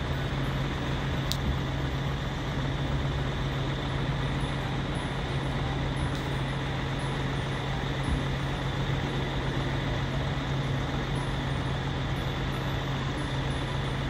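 Steady drone of distant road traffic, with a constant low hum running under it.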